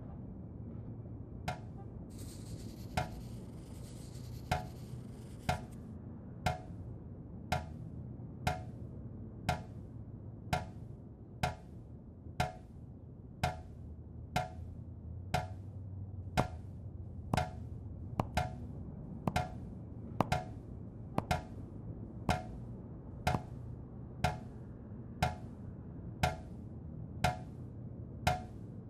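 A leaking tap dripping: single sharp plinks of water, about one a second, steady and even, over a low steady hum. A soft hiss joins for a few seconds about two seconds in.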